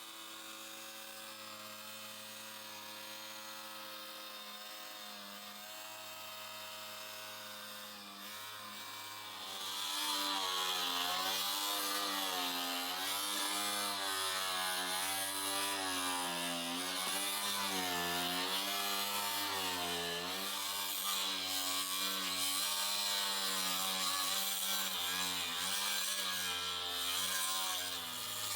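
Electric power saw cutting half an inch off the bottom of a UTV windshield. It runs steadily at first, then about ten seconds in it gets louder, with a hissing cut and a motor pitch that rises and falls with the load.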